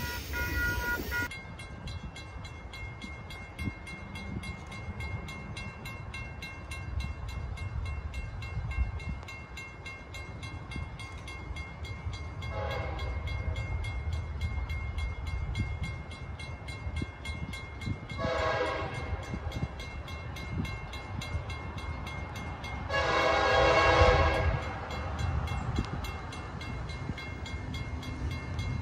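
Diesel locomotive horn of an approaching RJ Corman SD70M sounding for a grade crossing: three blasts, each louder than the last, the third the longest and loudest. Under it runs a low rumble and a steady ringing from the crossing signal.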